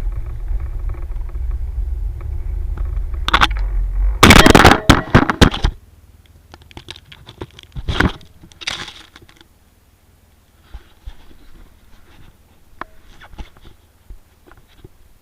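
A vehicle engine running steadily, then loud crackling and scraping noises about four seconds in as the engine sound stops. Faint scattered clicks and scrapes follow.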